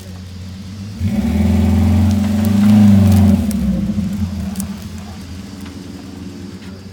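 Off-road 4x4 engine revving up sharply about a second in and holding high for a couple of seconds, then easing back to a quieter, steady run.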